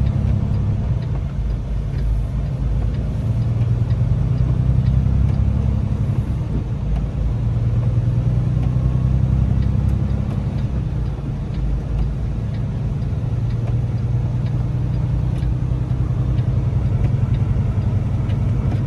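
Semi-truck's diesel engine and road noise heard from inside the cab while driving: a steady low rumble that swells slightly at times.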